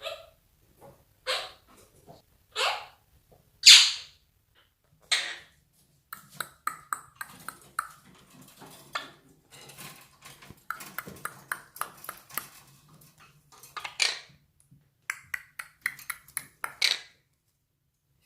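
Monk parakeet giving four short, loud calls, then a long run of rapid clicks and chirps, with a few louder calls among them.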